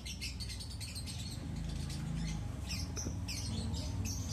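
Scratchy rustling of fingers rubbing and tickling a kitten's fur, in quick irregular strokes.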